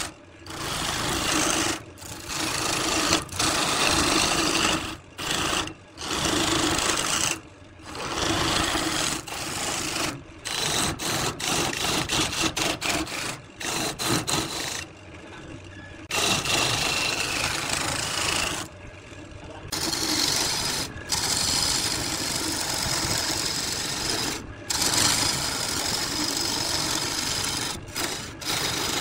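Wood lathe spinning a wooden vase blank while a turning chisel cuts it, a rough, even hiss of shavings peeling off over the lathe's hum. The cutting stops and starts in many short breaks.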